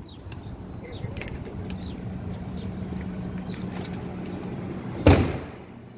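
Glass shop entrance door being opened and walked through over a steady low hum with faint clicks, then a single loud thud about five seconds in as the door shuts.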